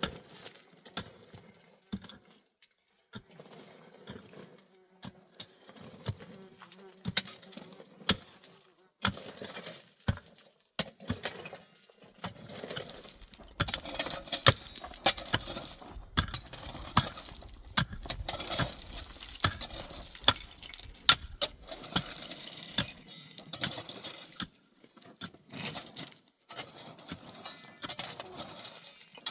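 Irregular sharp clicks and knocks of hard objects, sparse at first and becoming denser and louder about halfway through.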